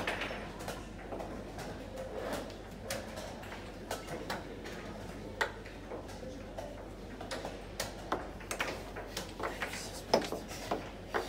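Plastic chess pieces clicking down on the board and chess clock buttons being tapped, sharp clicks at irregular spacing. The clicks come thicker near the end as the pieces are swept up at the close of the game.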